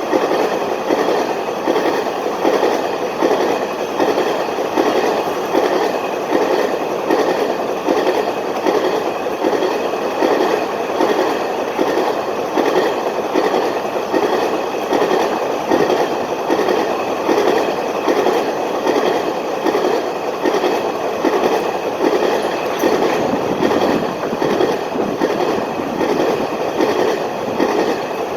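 Freight train of covered hopper cars rolling past, its wheels clicking over rail joints in an even, repeating rhythm.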